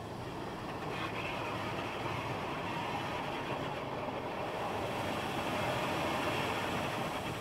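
Automatic car wash machinery heard from inside the car: a steady mechanical rumble and hiss that steps up about a second in and grows louder as the rotating cloth brushes and water spray reach the car.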